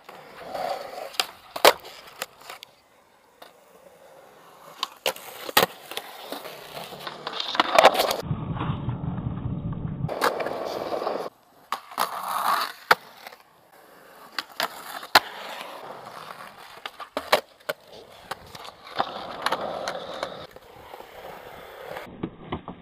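Skateboards rolling over hard ground, with repeated sharp clacks of tails popping and boards landing or hitting the ground.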